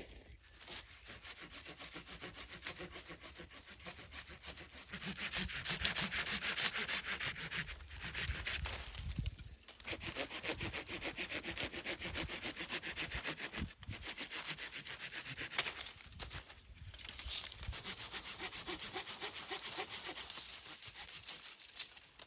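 Hand saw cutting through wood in several spells of steady back-and-forth strokes, with short pauses between them.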